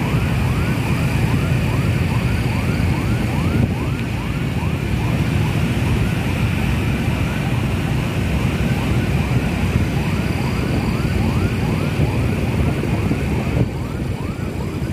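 Fast yelping vehicle siren, a rising-and-falling sweep about three times a second, over the steady drone of many motorcycle engines and wind noise from riding in a motorcycle convoy.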